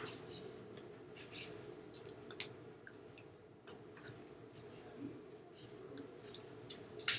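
Soft, short rustles and brushes of hands rubbing and moving against each other and clothing while signing, a few times, over a steady low room hum.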